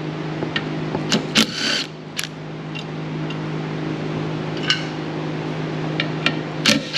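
A 10 mm socket on an extension unscrewing the motor-mount bolts on a cart's steering neck, giving a few separate metallic clicks and clinks. A steady low hum runs underneath.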